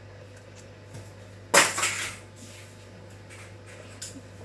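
Kitchen things being handled: a few light clicks and knocks, and one louder scraping rustle about one and a half seconds in.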